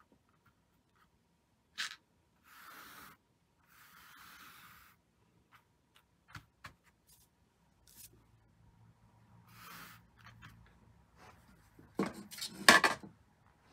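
Soft rubbing swishes of fingers smoothing a tatted lace doily flat on a tabletop, with a few faint clicks. A louder burst of rustling and knocks comes near the end.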